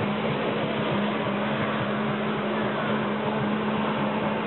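Jet-ski engine running steadily at high power to pump water up the hose to a flyboard, with a constant hum and the rush of its water jets.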